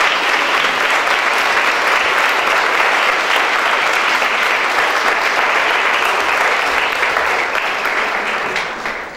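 A crowd applauding, steady clapping that fades out near the end.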